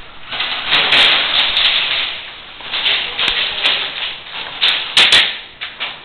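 Sharp cracks and clicks of airsoft gunfire and BBs striking plywood, in clusters about a second in, around three seconds and about five seconds in, over rustling and scuffling of movement.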